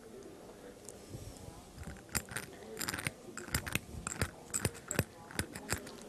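Discoid carving instrument scraping a groove into a maxillary dental cast: a run of short, gritty scratches, few at first and coming thick and fast from about two seconds in.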